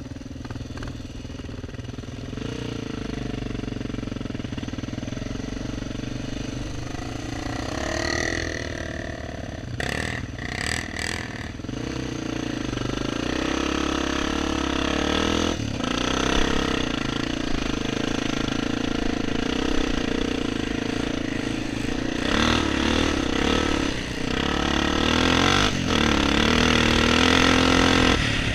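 1997 Honda XR400's air-cooled four-stroke single-cylinder engine, heard from the rider's helmet, ticking over and then pulling away and running along a sandy trail, its pitch rising and falling with the throttle. It gets louder about twelve seconds in as the bike picks up speed, with a few sharp knocks just before.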